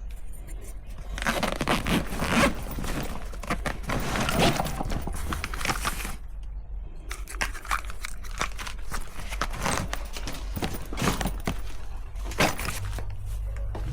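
Irregular scraping, rubbing and light knocking of objects being handled, in two spells with a short lull about six seconds in.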